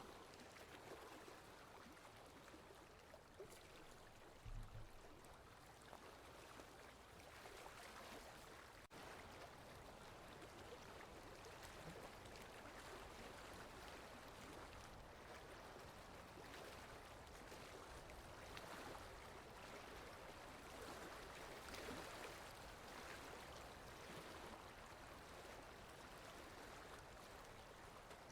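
Faint water lapping and trickling at a lake's edge: a soft, steady wash of noise. A brief low thump comes about four and a half seconds in.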